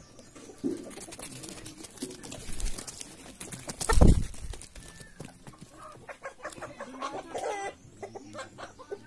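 Domestic chickens clucking with short, scattered calls, and one longer call a little after seven seconds. A brief low thump about four seconds in is the loudest sound.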